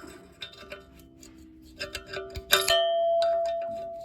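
Metal clinking and tapping on a steel post foot and its bolts. About two and a half seconds in, one sharp clang rings on as a single steady tone that fades slowly.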